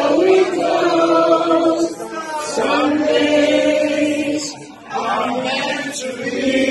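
Live singing into a microphone: long held, wavering notes, briefly dropping away about four and a half seconds in before the voice comes back.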